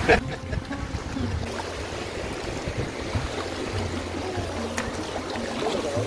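Fast mountain river water rushing around an inflatable rubber raft, a steady even wash.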